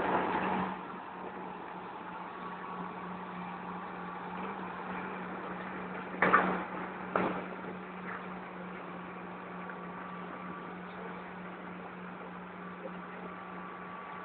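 Steady hum of heavy diesel machinery at the rock-loading site. Near the start, the tail end of a load of rocks crashing into a steel dump-truck body, then two sharp loud knocks about six and seven seconds in.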